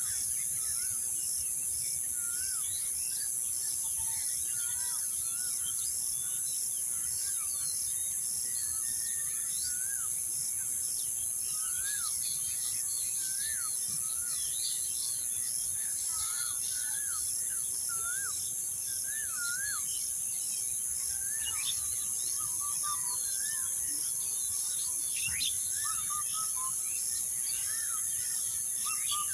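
Steady high-pitched insect chorus with a pulsing rhythm, with many short birds' chirps and whistled calls, rising and falling, over it throughout.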